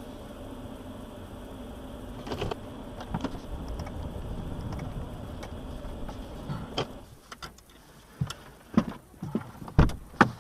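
Steady road and engine hum of a car driving, heard from inside the cabin, which drops away about seven seconds in as the car comes to a stop. It is followed by several sharp knocks and clicks near the end.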